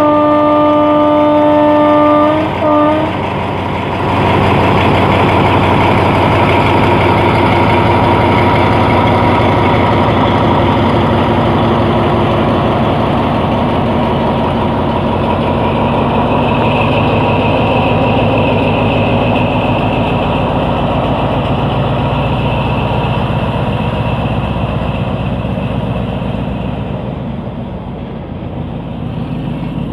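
Diesel locomotive horn sounding one long blast and a brief toot. Then the locomotive's diesel engine runs loudly as the train rolls past with a steady rapid clatter. A high steady tone joins about halfway through, and the sound eases slightly near the end.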